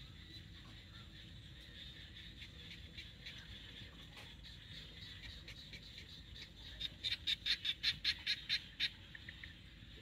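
Outdoor animal calls: a faint, steady high-pitched calling with scattered ticks, then about seven seconds in a run of about ten loud, sharp chirps, some five a second, lasting about two seconds.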